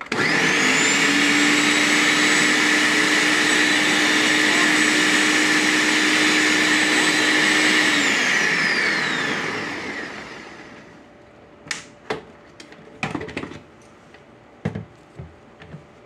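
Ninja Professional countertop blender motor starting abruptly and running at a steady speed for about eight seconds as it blends a pitcher of liquid, then winding down to a stop over about two seconds. A few sharp plastic clicks and knocks follow as the pitcher is lifted off the motor base.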